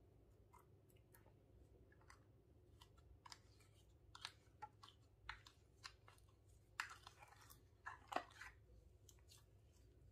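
Clear slime being squeezed and poked by hand, giving faint scattered sticky clicks and small wet crackles, busiest and loudest a little past the middle.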